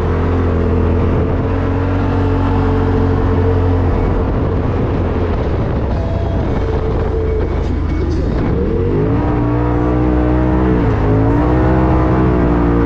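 2021 Polaris RZR Turbo S's turbocharged twin-cylinder engine running hard, its revs dropping sharply about eight seconds in, climbing again, then dipping briefly near the end.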